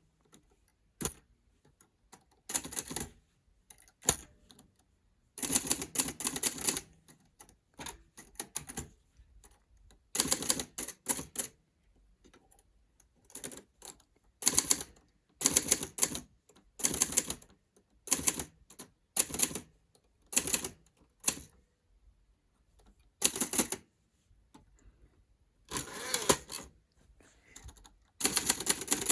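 Hermes 3000 manual typewriter being typed on: keys and typebars clacking in short irregular bursts with brief pauses between them.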